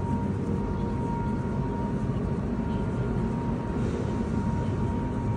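Steady low rumble of a large factory hall's machinery or ventilation, with a thin steady whine above it.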